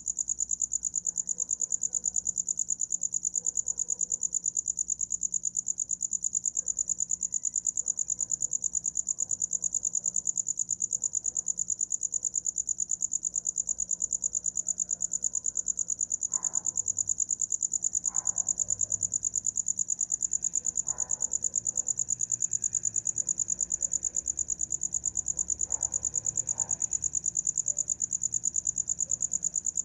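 A cricket chirping without a break, a fast, even stream of high-pitched pulses.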